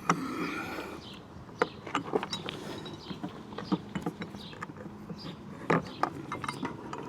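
Irregular clicks, knocks and creaks of mounting hardware being handled and fitted while attaching a car awning's bracket to a roof rack.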